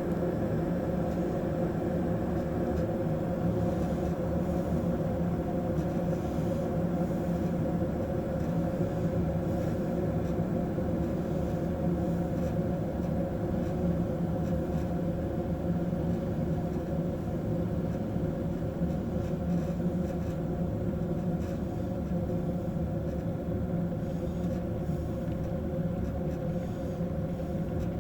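Grundig electric kettle heating water, a steady noise of the water at or near the boil that holds even throughout.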